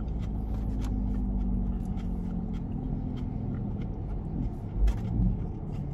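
Steady low hum of a car idling, heard inside the cabin. Faint clicks of plastic forks on takeout containers and eating sounds come over it, with a couple of soft low thumps near the end.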